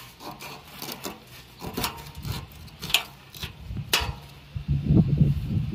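Knife sawing through the tough skin and cartilage of a nurse shark's tail: scraping strokes with several sharp clicks. About four and a half seconds in, louder low rumbling thuds take over.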